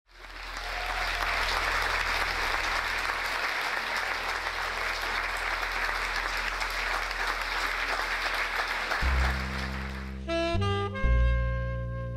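Audience applause, with a low steady hum underneath, for about nine seconds, then a double bass starts playing and a saxophone comes in a second later as the jazz trio begins a tune.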